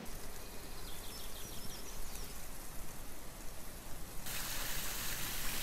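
Outdoor ambience with a low rumble and a few faint chirps. About four seconds in, a louder, brighter hiss of falling, splashing water from a fountain takes over.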